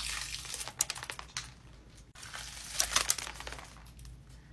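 Crinkly crackling as a glued layer of rhinestones is peeled off the skin of the forehead. It comes in two spells of many small crackles, the second about three seconds in, then dies down.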